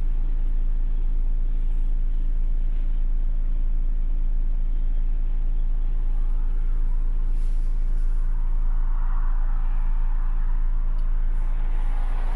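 Heavy truck's diesel engine idling steadily, a low, even hum heard from inside the cab.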